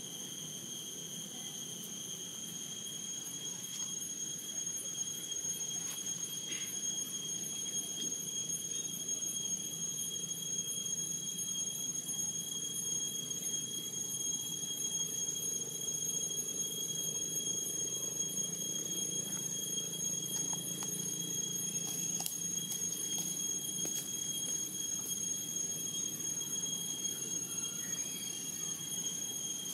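Insects calling in one steady, unbroken high-pitched tone over a low background rumble, with a few faint clicks about three-quarters of the way through.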